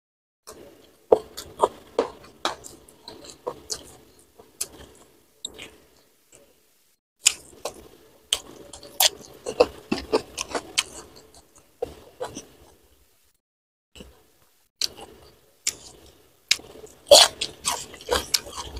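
Close-miked chewing and wet mouth sounds of someone eating rice, sambal fish and stink beans (petai) by hand: irregular bursts of clicks and smacks, with short pauses about six and thirteen seconds in.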